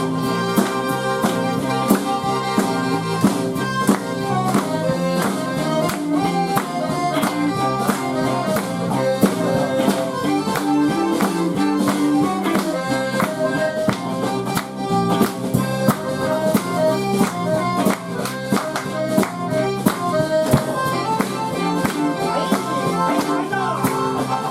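Live band playing an instrumental passage led by accordion, with bass and drums keeping a steady beat.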